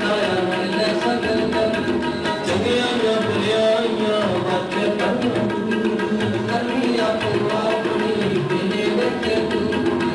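Sikh shabad kirtan music: tabla drums playing a steady rhythm with deep bass strokes, under a sustained melody on harmonium.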